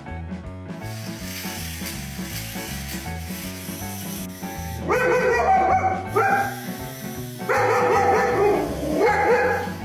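A dog barks at a toy snake on the floor: four drawn-out, pitched barks starting about halfway in, the third the longest, over background music.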